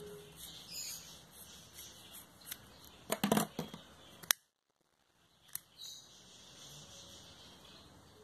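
Scissors snipping through layered ribbon with faint ticks, then about three seconds in a cluster of sharp clicks and a single sharp click just after.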